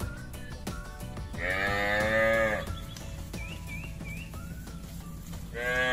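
Cattle mooing: one long moo lasting just over a second, and a second moo beginning near the end.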